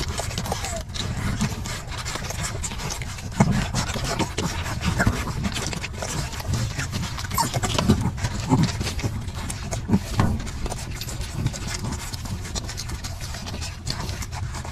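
A litter of puppies suckling from their mother, with wet smacking and clicking sounds and a few short whimpers and grunts as they jostle for the teats.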